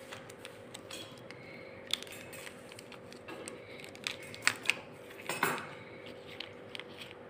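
Scattered light taps and clicks, with a short crinkling rustle about five seconds in, as small plastic sauce sachets are picked up and set down on a stone countertop. A faint steady hum runs underneath.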